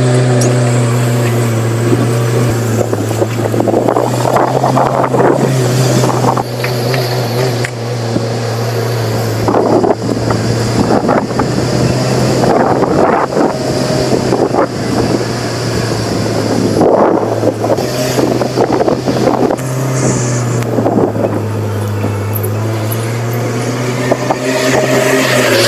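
Hyundai H100 pickup's engine running at fairly steady revs while driving off-road, with bursts of rough, rattling noise every few seconds.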